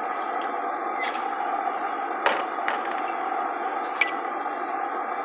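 Light knocks and clinks of steel tools and tongs handled on an anvil, with no hammer blows. The last, about four seconds in, gives a short metallic ring. A steady rushing noise runs underneath.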